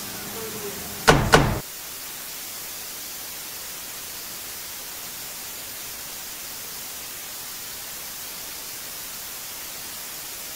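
Two loud knocks on a door, a quarter second apart, about a second in, followed by a steady hiss of static.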